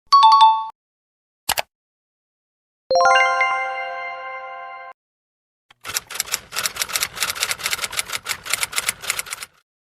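A string of short sound effects one after another: a quick two-note chime, a single short click, a ringing chord that fades over about two seconds, then about three and a half seconds of rapid, uneven clicking and clattering.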